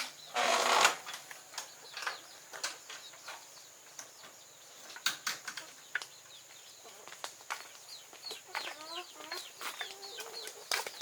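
Farmyard chickens, with a loud burst of wing flapping about half a second in, scattered sharp clicks and taps, and a run of short clucking calls near the end.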